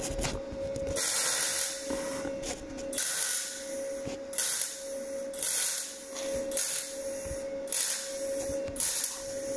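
MIG welder arc crackling and hissing in a series of short bursts, roughly one a second, as thin, rusty van floor steel is stitch-welded in stages so the panel does not distort and fewer holes are blown through. A steady whine from the welder's cooling fan runs underneath.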